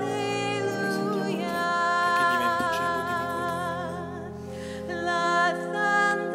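Slow sacred music: singing with vibrato over sustained accompanying chords.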